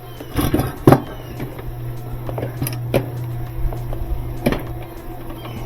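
Metal parts knocking and clanking a few times over a steady low hum, with the sharpest knocks about a second in and again around three and four and a half seconds, as parts of a Whirlpool direct-drive washer's clutch and brake assembly are worked on.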